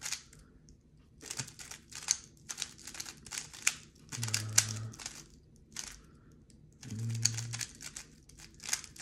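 A stickerless 3x3 speedcube being turned by hand: runs of rapid clicking layer turns in several bursts with short pauses between, and a few brief low hums in the pauses.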